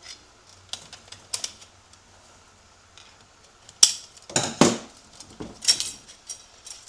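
Sharp metallic clicks and clinks of steel transmission parts being handled as a snap ring is worked off the spring plate in a 6L80 clutch housing. The loudest click comes about four seconds in, followed by a few heavier clanks of metal on metal.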